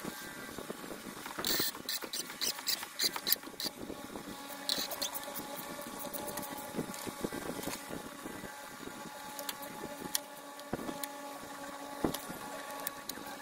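Scattered metallic clicks and knocks of hand tools working a three-jaw puller to draw the A/C compressor pulley off its shaft, over a steady hum.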